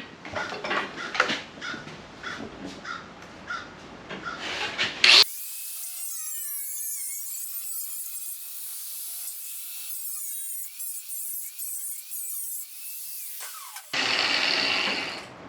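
Sheet-metal patch panel being trimmed to fit: a run of short, uneven cutting and scraping strokes, then a thin, filtered-sounding stretch. A louder steady burst of about a second and a half comes near the end.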